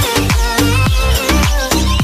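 Electronic dance music with a fast beat of deep kick drums that drop in pitch, about three a second, under held synth notes.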